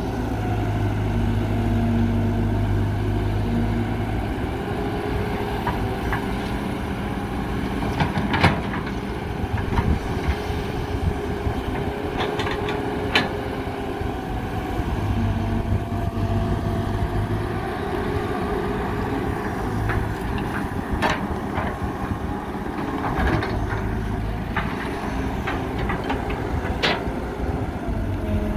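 CAT 312B hydraulic excavator's diesel engine running steadily while it digs and loads a dump truck, the engine note swelling heavier twice. Several short sharp knocks are scattered through it.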